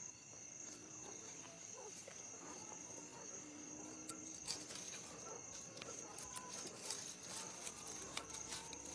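Faint steady chirring of crickets, with soft scattered clicks and rustles of a rope fishing net being handled, more frequent in the second half.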